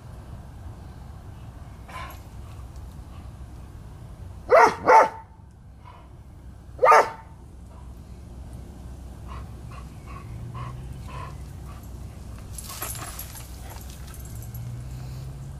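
Airedale terrier barking: a faint bark about two seconds in, then two loud barks in quick succession and a third about two seconds later. A brief rush of noise follows near the end.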